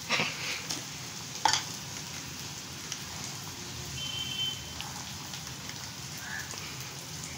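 Onion, green masala paste and tomato sizzling steadily in a kadai over a gas flame. The spatula clicks against the pan twice in the first two seconds.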